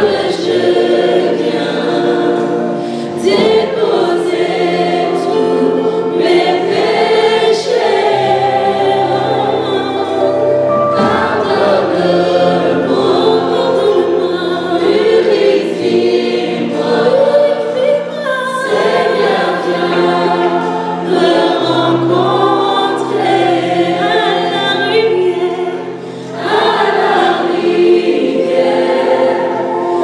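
Gospel worship singing in French: a female lead voice with a mixed backing choir, over sustained low accompaniment chords that change every few seconds.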